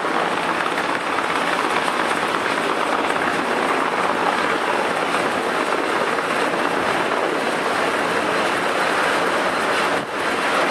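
Steady, even rushing noise on the open deck of a warship under way at sea, with no distinct events; it dips briefly about ten seconds in.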